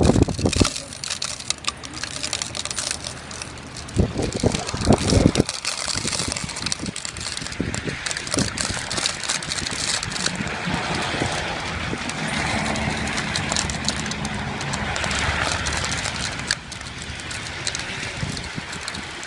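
Cars driving past on a wet, slushy road, a steady rushing noise, with wind and handling rumbles on the phone's microphone; a few loud low rumbles about four to five seconds in.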